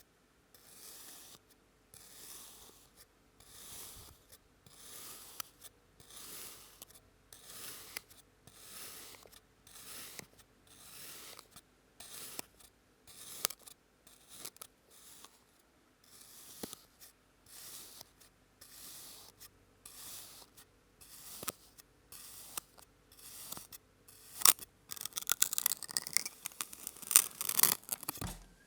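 Kinetic sand being sliced with a blade: a soft hissing cut about once a second, repeated over and over. Near the end the sound turns louder and denser, a fast crackling crumble of the sand.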